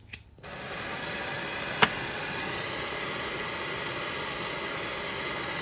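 Electric heat gun switched on about half a second in and blowing steadily, heating a brass threaded insert to melt it into plastic. A single sharp click about two seconds in.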